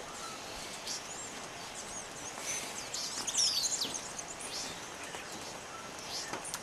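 Birds chirping with short, quick whistled glides, busiest around the middle, over a steady background hiss.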